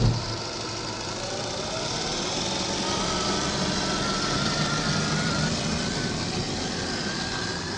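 RC crawler's electric drive running as it climbs over gravel: a steady motor and gear whine that wavers slightly, over the crunch of the tyres on loose stones.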